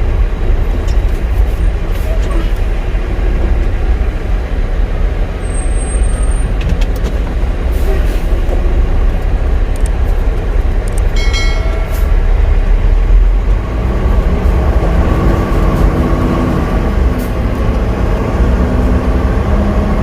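Semi-truck diesel engine running with deep rumbling cab noise as the truck moves off slowly, with a short high tone about eleven seconds in.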